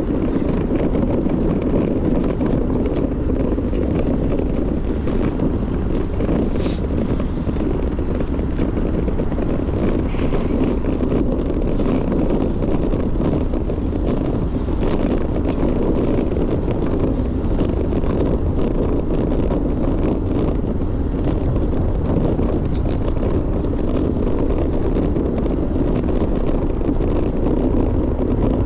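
Wind buffeting a GoPro's microphone while riding a bike: a steady low rush, with a few faint ticks.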